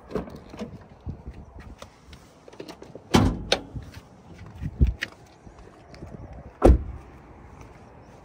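A car's door being handled: latch clicks and several heavy thuds, one about three seconds in and the loudest a little before the end, as the door is opened and shut.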